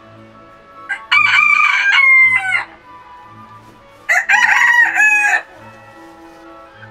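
Two rooster crows, the first about a second in and the second about four seconds in, each lasting a second or more, over quiet background music.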